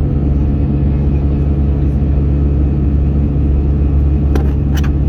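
Airbus airliner's engines running steadily, a low, even drone with a layered hum. Two short clicks near the end.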